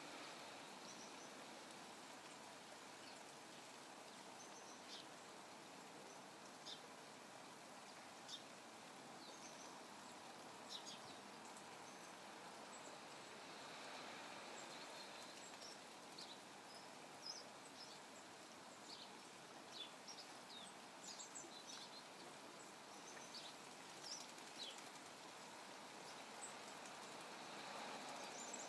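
Faint splashing as a male common blackbird bathes in a shallow garden pool, with bursts of splashing about halfway through and again near the end. Scattered short, high bird chirps sound over a steady faint hiss of rain.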